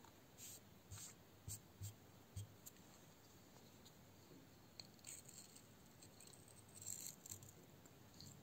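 Near silence broken by faint scattered clicks and taps: a folding grafting knife being handled and its blade set against a whetstone.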